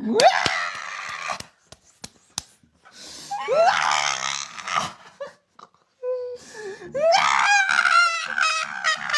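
A person's voice making loud, high, non-speech cries, shrieks or laughter in three long bursts, each sweeping up in pitch, with a few sharp clicks between the first two.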